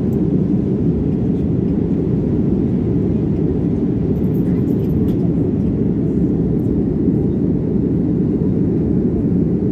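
Steady low rumble of a jet airliner's cabin in flight: engine and airflow noise heard from inside the cabin, even and unchanging.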